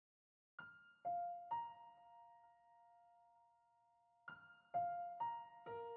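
Soft piano music: a slow melody of single notes, three notes in the first second and a half, a pause while they ring out, then a phrase of four more near the end, each note left to sustain.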